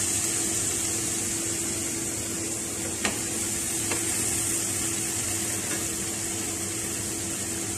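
Onion-tomato masala sizzling steadily in a nonstick frying pan, with two light taps of a wooden spatula about three and four seconds in. A steady low hum runs underneath.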